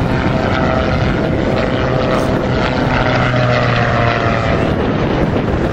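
Gyroplane's engine and pusher propeller giving a steady drone during an aerobatic display, its pitch wavering slightly as the aircraft manoeuvres.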